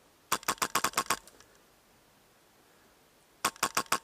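Airsoft gun firing two quick strings of sharp shots, about six in the first second and four more near the end.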